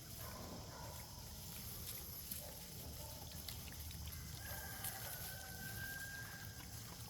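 Faint outdoor ambience with one distant, drawn-out animal call of about two seconds, beginning some four seconds in.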